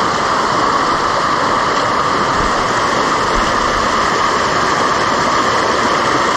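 Loud, steady rushing of a waterfall swollen by the monsoon.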